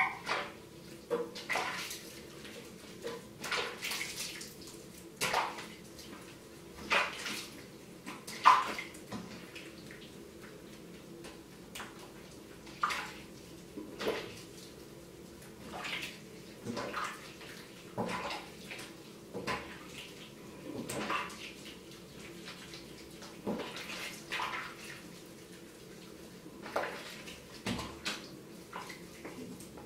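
Water splashing in a sink as a kitten is washed by hand, in irregular short splashes every second or two.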